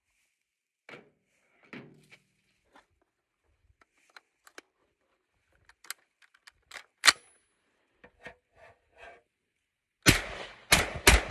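Clicks and knocks of a Norinco Type 97 semi-automatic 5.56 rifle being handled, then about ten seconds in a quick string of shots, about three a second.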